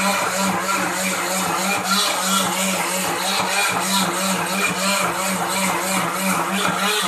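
Khind electric blender running steadily at full speed, grinding shallots, garlic, ginger, turmeric, lemongrass and chillies into a wet spice paste. It is a loud motor whir with a constant low hum.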